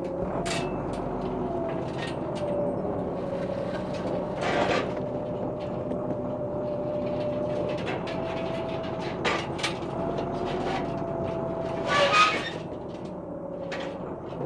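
A machine's motor whining steadily, its pitch drifting slowly, with sharp metal clanks now and then, the loudest a cluster about twelve seconds in. This fits lifting gear at work during a sailboat launch.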